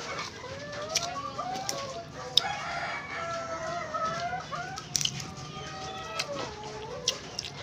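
Chickens clucking and calling in wavering, drawn-out calls, with a few sharp clicks over them.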